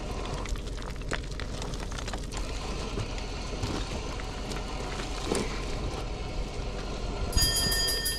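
Scattered knocks and scuffs of loose scree stones shifting under feet and under a fallen motorcycle as it is hauled up the slope, over a steady noisy rumble. Music comes in near the end.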